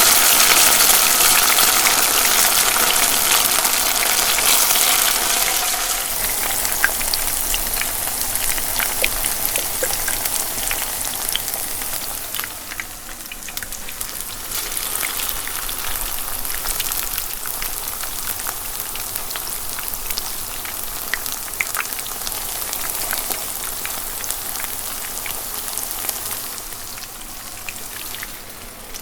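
Tempura deep-frying in hot oil: a dense sizzle full of scattered pops and crackles. It is loudest at first, thins out after a few seconds and slowly dies down as the frying settles.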